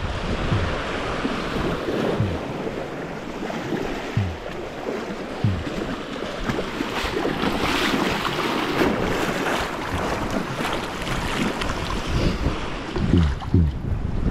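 Small surf washing at the shoreline, with wind on the microphone, and the splashing steps of someone wading through shallow water. The steps come every second or so and grow busier and louder around the middle.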